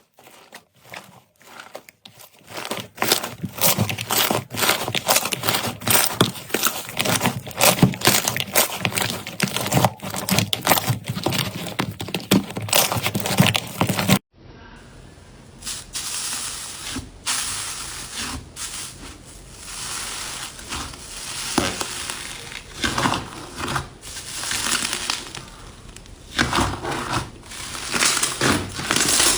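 Slime being squeezed and pressed by hand, giving rapid, dense crackling and popping. About halfway through it cuts abruptly to another clip where the crackle is quieter.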